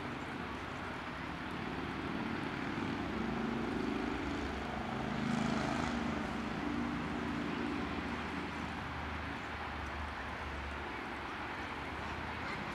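A distant engine's steady drone that swells to a peak about five seconds in and then eases off.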